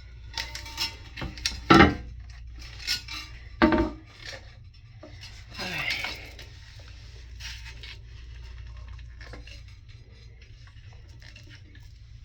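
Plastic flush-valve parts knocking, clinking and scraping against the porcelain toilet tank as the new valve is positioned and hand-tightened: a run of sharp clinks in the first four seconds, the loudest about two seconds in, then a longer scrape around six seconds, then quieter handling.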